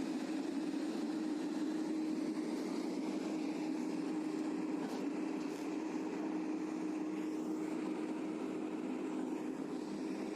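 Pile boring rig's diesel engine running steadily, a constant mechanical drone.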